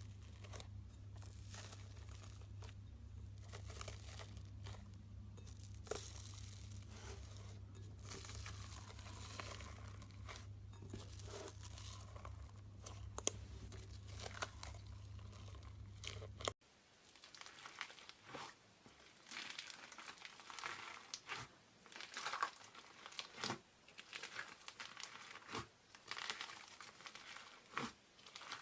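Slime being squeezed and stretched by hand, a faint run of small crinkling clicks and pops. A low hum under the first part cuts off suddenly a little past the middle.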